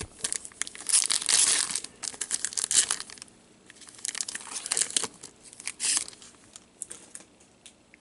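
Trading-card pack wrapper being torn open and crinkled by gloved hands, in irregular crackling bursts that come and go and die away near the end.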